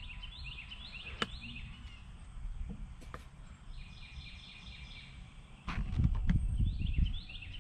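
A bird singing a quick, repeated series of short sliding notes. A louder burst of low rumbling with a few knocks comes about two-thirds of the way in.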